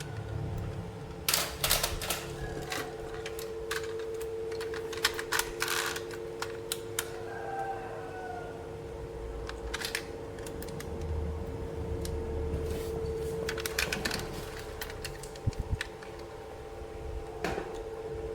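Hard plastic toy parts clicking and tapping as they are handled and fitted together, in irregular clusters, over a steady hum.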